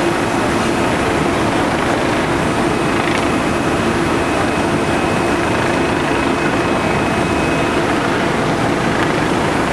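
Aerial ladder truck's engine running in a steady loud drone while its aerial ladder is raised, with a thin high whine from about two seconds in to near the end.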